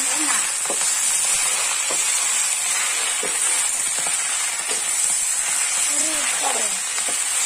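Leafy greens stir-frying in a wok over a wood fire: a steady sizzle, with a metal spatula scraping and clicking against the pan about once a second.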